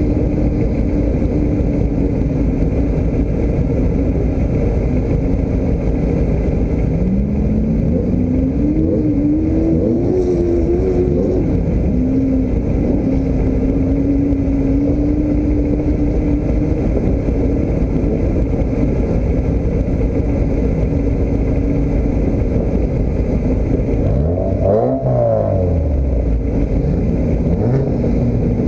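A vehicle engine runs steadily under way. Its pitch climbs as it speeds up about seven seconds in, then settles back to a steady note. Near the end there is a brief sweep down and up in pitch.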